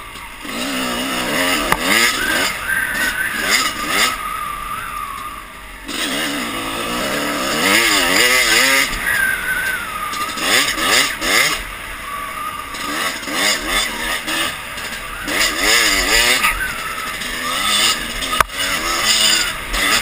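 Dirt bike engine revving hard and shifting through the gears, its pitch climbing and dropping over and over, with wind rushing over the helmet-mounted microphone. One sharp knock comes near the end.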